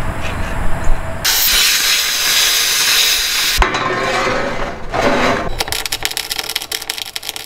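Steel fabrication: a loud, even hiss lasts about two seconds and cuts off abruptly. Near the end comes the dense, fast crackle of a MIG welder laying a bead on a steel I-beam brace.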